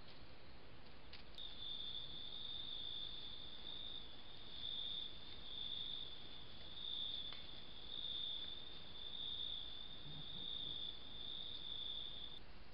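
A cricket trilling: one continuous high-pitched trill that swells and eases about once a second. It starts abruptly about a second in and cuts off suddenly near the end.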